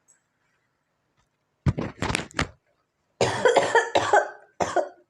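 A person coughing in short fits, set off by sniffing red chilli powder: three quick coughs, then a longer run of coughing a second later, and two more coughs near the end.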